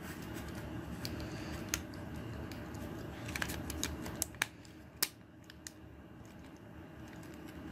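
Plastic parts of a Transformers Studio Series Blitzwing action figure clicking as joints and panels are moved and snapped into place by hand during its transformation. There is a quick run of sharp clicks about three to five seconds in, and the loudest comes near five seconds.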